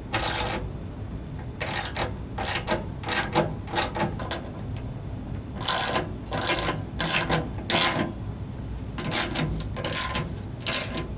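Socket wrench ratchet clicking in short bursts, one per back-swing, with pauses between groups, as the bolts holding a snow blower's skid shoe to the auger housing are tightened.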